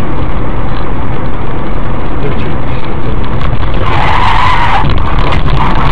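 Car driving with steady road and engine rumble, and a brief tyre skid about four seconds in.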